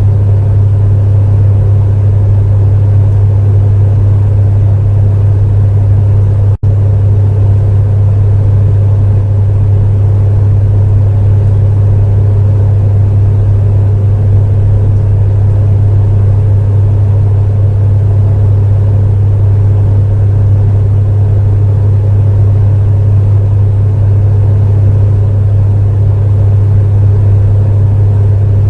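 Space heater running with a steady low hum and an even fan-like rush, broken by a split-second dropout about six and a half seconds in.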